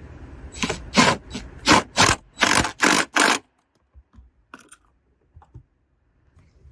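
A tool tightening the 12 mm battery hold-down bolt: a run of about eight short rattling bursts, two to three a second, that stops about three and a half seconds in, followed by a few faint clicks.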